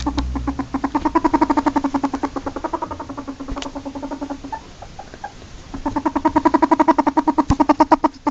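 A ferret dooking: rapid clucking, about ten clucks a second. It trails off a little past halfway and starts up again louder about a second later. Dooking is the chatter ferrets make when excited or playing.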